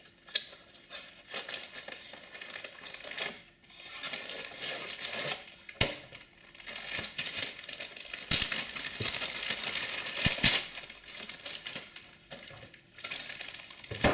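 Plastic packaging crinkling as a zip-lock bag of cables and a metallic anti-static shielding bag are handled and unwrapped, in irregular rustles with a few sharp clicks.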